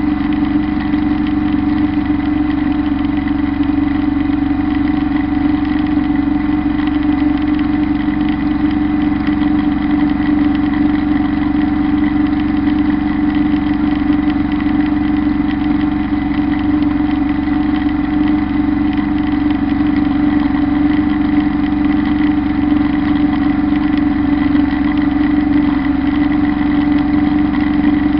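Kubota Bulltra B1-17 compact tractor's three-cylinder diesel running at a steady speed under load, driving a Zanon drum mower through the PTO while it cuts tall grass. A loud, unchanging engine drone.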